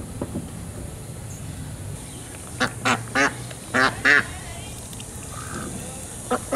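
White domestic duck quacking: five short, loud quacks in two quick runs about halfway through.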